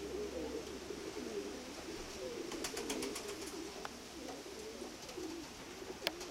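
Many domestic pigeons cooing at once, their overlapping coos running continuously, with a few short clicks about two and a half to three seconds in and again near the end.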